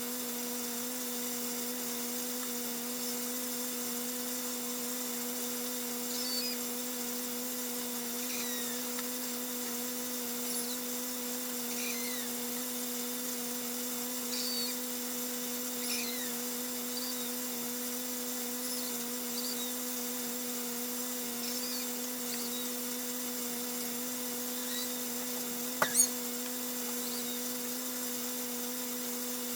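A steady hum made of two constant tones over a faint hiss, with scattered brief faint chirps. There is a sharp click about 26 seconds in.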